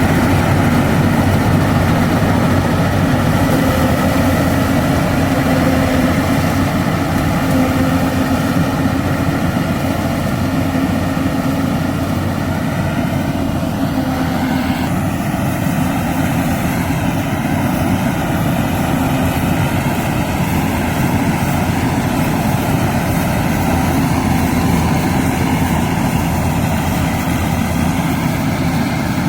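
Yanmar AW82GV combine harvester's diesel engine and threshing machinery running steadily while harvesting rice, with the higher hiss easing about halfway through.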